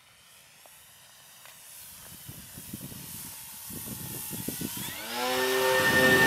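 Electric RC plane's brushless outrunner motor and propeller whining as it closes in and passes low overhead, growing steadily louder; about five seconds in the whine rises in pitch and then holds steady and loud.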